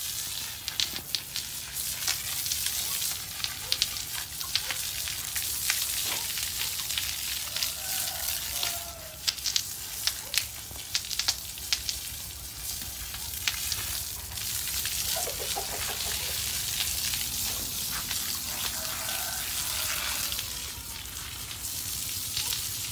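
Water from a garden hose spraying over a water buffalo's back and head: a steady hiss of spray, with scattered patters and drips of water hitting the animal and the wet concrete.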